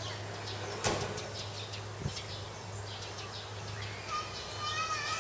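Outdoor ambience of small birds chirping repeatedly over a steady low hum, with a sharp tap about a second in. Near the end a drawn-out high-pitched call with several overtones rises above the chirps.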